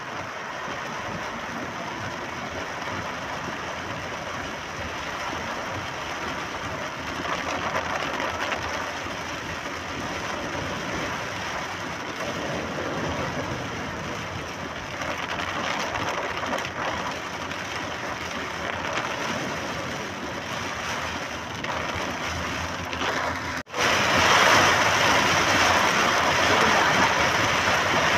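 Steady noise of a car driving in rain, heard from inside the cabin: tyres hissing on the wet road and rain on the car. About 24 seconds in the sound drops out for an instant and returns louder and brighter.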